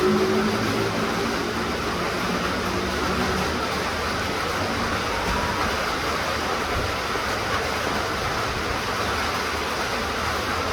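Steady rain falling, an even hiss. A passing motor vehicle's engine fades away over the first few seconds.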